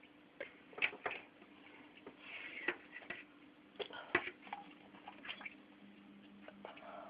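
Irregular clicks, taps and small watery sounds from work in a home aquarium, over a faint steady hum from the tank's equipment.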